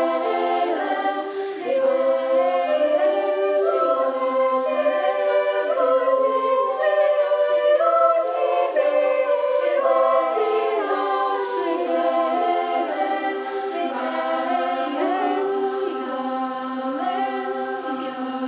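Young voices in a choir singing a cappella, in several parts, holding sustained chords that move together about once a second.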